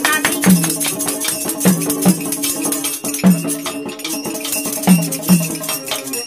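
Instrumental folk music: a low hand drum strikes in a repeating rhythm, often in pairs, each stroke dropping slightly in pitch, over jingling, shaken percussion and a steady held drone.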